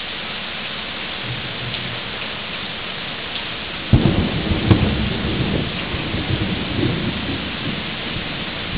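Heavy rain falling steadily, with a sudden clap of thunder about four seconds in that rumbles on for a few seconds.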